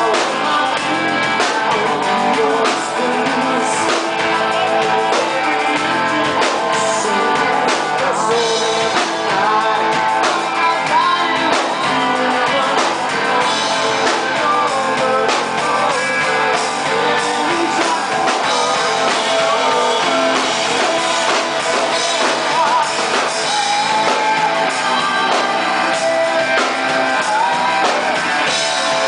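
Live rock band playing loud and steady: electric guitar, electric bass and drum kit, with a man singing lead.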